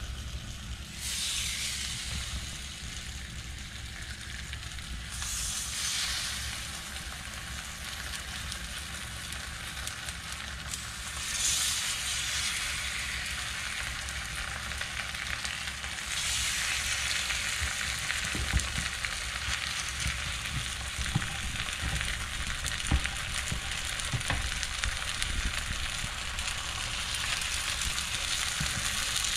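Batter-coated perilla leaves sizzling as they fry in oil in a frying pan. The hiss swells briefly a few times and is louder through the second half, with a few faint knocks.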